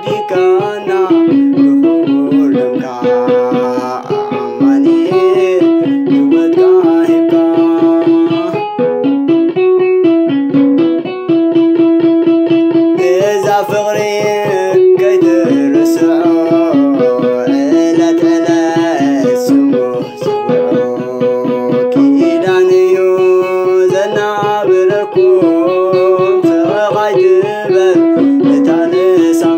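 Krar, an Eritrean plucked lyre, playing a repeating stepwise hymn melody in quick plucked notes.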